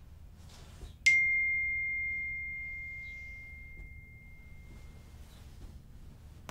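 A single high, bell-like chime struck once about a second in, one clear tone ringing and slowly fading over about four seconds, over faint low room tone.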